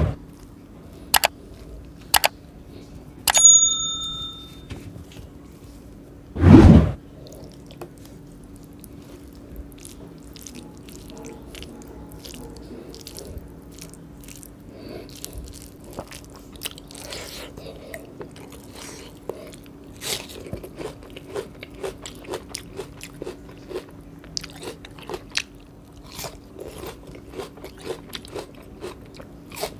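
Close-up eating sounds: crunching, chewing and wet mouth clicks from a person eating fried chicken lollipops with rice by hand, thickening over the second half. A short pinging chime from a subscribe-button sound effect comes a few seconds in, and two heavy thumps come at the start and about six seconds in, over a faint steady hum.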